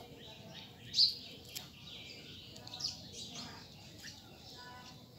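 Sharp, high-pitched animal chirps, the loudest about a second in, with a few softer chirps after it.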